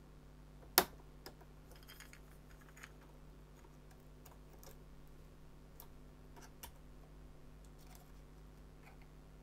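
The plastic lid of a clamshell IC socket on a circuit board is prised open with a small screwdriver. There is one sharp click about a second in, then faint scattered ticks and scrapes.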